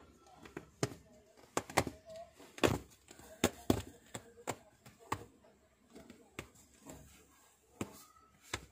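A cat pawing and turning in a padded fabric pet bed, making a dozen or so irregular sharp taps and scratches, the loudest a few seconds in.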